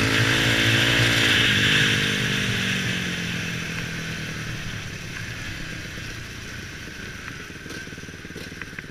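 Off-road motorcycle engine running, then easing off about a second and a half in and fading steadily as the bike slows on a gravel track, over a steady hiss of wind rush on the helmet camera.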